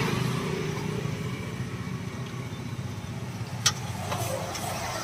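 Steel ladle stirring kaalan (mushroom) masala in a small wok, with one sharp metal clink a little past halfway and a few lighter scrapes after it, over a steady low engine-like hum.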